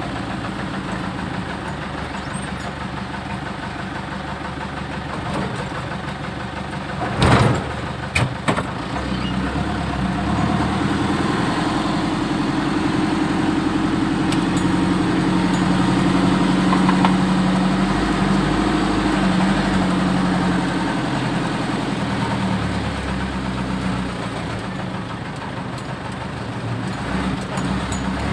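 Six-wheeler mini dump truck's engine running as the truck is driven. The engine note swells from about ten seconds in and eases again near the end. A loud clunk comes about seven seconds in, followed by two shorter clicks.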